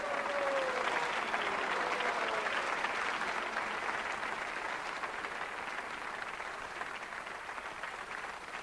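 Studio audience applauding, loudest in the first couple of seconds and slowly easing off.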